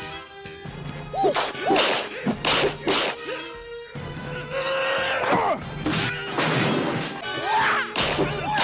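A slapstick fight: a rapid string of whacks, swooshes and crashes, mixed with quick swooping squeals, over music.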